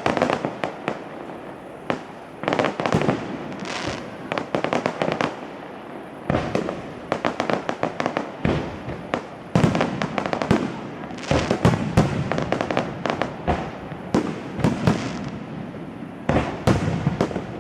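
Fireworks going off in quick volleys: rapid clusters of sharp bangs and crackles, with booming shell bursts and their echoes rolling between them.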